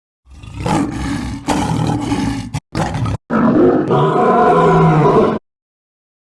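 Big cat roaring in several rough, deep calls, cut together from separate sound-effect pieces with abrupt breaks between them. The sound stops suddenly a little after five seconds in.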